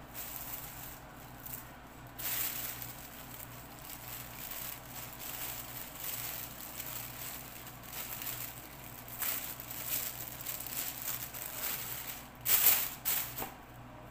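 Thin plastic bags crinkling and rustling as they are handled, in irregular bursts, with a louder flurry of crinkling near the end.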